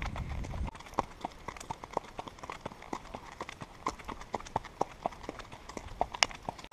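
Horses' hooves clip-clopping at a walk, about three or four steps a second, with one louder strike near the end. Wind rumble on the microphone cuts off abruptly under a second in.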